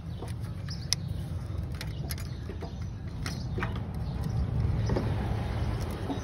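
Scattered light metallic clicks of a hand tool on a bolt and metal parts while an alternator bolt is tightened, over a steady low rumble. The sharpest click comes about a second in.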